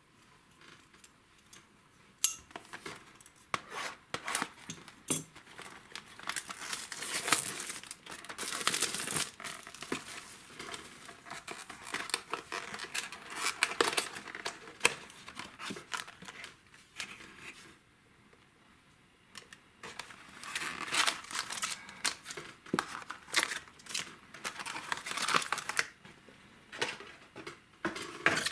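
Plastic shrink wrap crinkling and tearing as it is stripped off a trading-card booster box, in bursts with sharp crackles and a short pause about two-thirds of the way in. Foil booster packs then rustle as they are taken out and handled.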